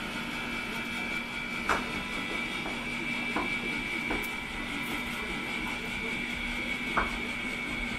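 Steady machine hum with a high whine, broken by three light clicks about two, three and a half, and seven seconds in.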